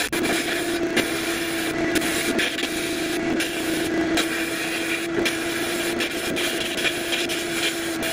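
Abrasive blast gun in a blast cabinet spraying grit onto a rusty hatchet head to strip the rust: a steady hiss with a low hum underneath, broken by brief gaps now and then.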